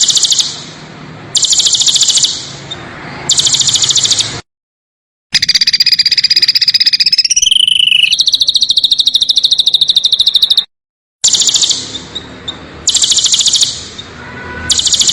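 Songbird song in harsh, rapid-fire trills: several bursts of about a second of fast buzzy pulses, then a long unbroken trill through the middle with a short falling slide. The phrases are spliced together, with abrupt cuts to dead silence twice.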